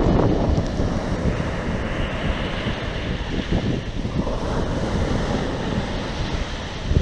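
Sea waves washing and breaking, with strong wind buffeting the microphone.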